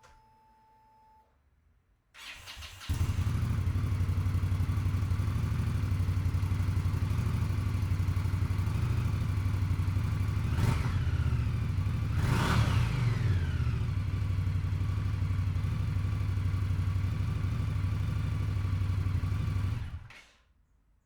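A 2021 Indian Scout Bobber's V-twin engine is cranked on the starter and catches after about a second. It idles steadily, is given two quick throttle blips about halfway through, and then shuts off near the end.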